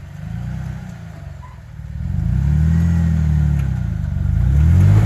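Four-wheel-drive vehicle's engine revving under load as it crawls over an off-road obstacle. The revs swell from about two seconds in, ease, then rise again near the end.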